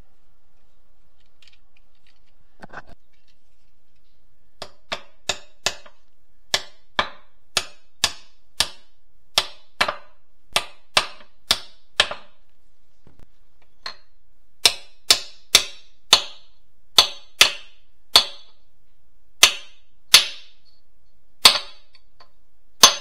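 Hammer tapping on metal transmission parts: a run of sharp, ringing strikes about two a second, pausing briefly partway through, then resuming louder and more spaced toward the end.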